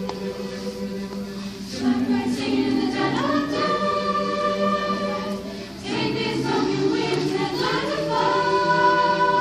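Mixed teenage choir singing in parts, holding long notes, with a short break a little past halfway before the next phrase begins.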